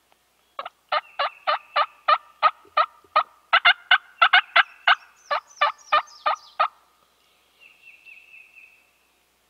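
Turkey yelping: a long run of about twenty loud, quick yelps, roughly three a second, stopping about seven seconds in, the last few higher and sharper. A small songbird trills faintly near the end.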